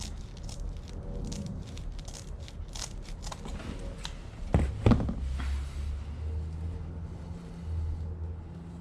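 Corrugated plastic split wire loom being handled and cut to length: a run of sharp clicks and crinkles, with two louder knocks about halfway through, followed by a steady low rumble.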